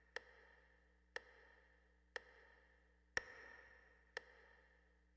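Near silence with a faint, sharp tick once a second, evenly spaced like a metronome, over a low steady hum.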